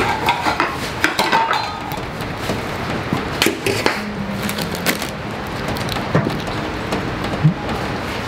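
A kitchen knife filleting a horse mackerel on a wooden cutting board: scattered light taps, clicks and scrapes of the blade against the board and the fish's bones, over a steady background hiss.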